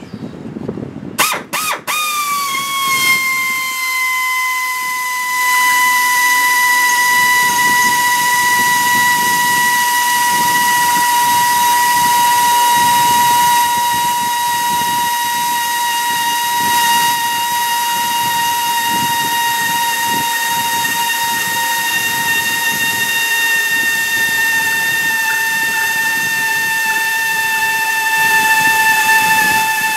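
Blue-Point right-angle air drill running without a break as it bores a bolt hole through a welded steel tool rack. It makes a steady whine over a hiss of air, with the pitch sagging slowly under load, after a few short clicks as it starts about a second in.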